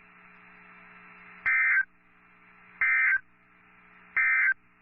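Three short bursts of Emergency Alert System data tones from a NOAA Weather Radio broadcast, each under half a second and about a second apart: the End Of Message code that closes the tornado warning. Faint radio hiss and a steady hum lie between the bursts.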